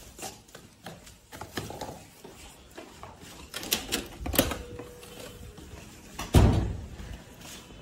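Footsteps in rubber clogs and the handling of a wooden door: scattered knocks and latch clicks, a short squeak about four and a half seconds in, and a heavy thump a little after six seconds, the loudest sound.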